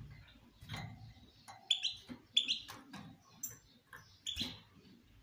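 European goldfinch giving short, sharp, high chirps, some in quick pairs and some single, from about a second and a half in. A low dull thump comes just under a second in.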